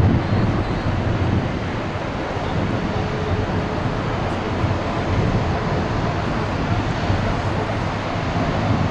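Boeing 777-300 airliner's jet engines running as it rolls past, a steady low rumble mixed with wind noise on the microphone.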